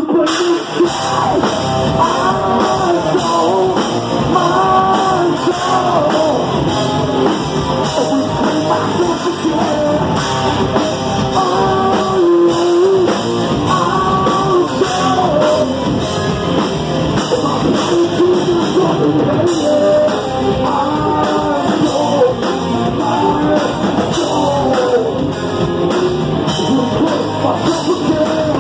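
Live rock band playing loudly: a man singing into a microphone over electric guitar and a drum kit.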